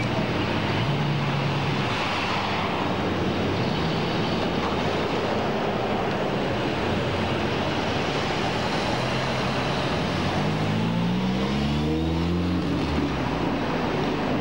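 City street traffic: cars driving past with steady road noise, and a vehicle's engine rising in pitch as it accelerates about ten to twelve seconds in.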